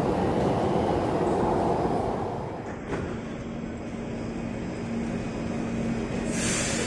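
Singapore MRT train running past platform screen doors with a heavy rumble for about three seconds. After a cut, a C151 train departing the platform, with a quieter rumble and a steady low hum, and a short burst of hiss near the end.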